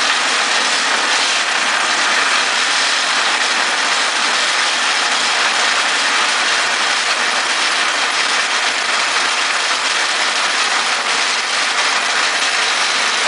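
Homemade friction welder running: an electric motor spins a steel rod pressed end-on against a fixed steel rod, giving a loud, steady grinding hiss of metal rubbing on metal as the joint heats to a red glow.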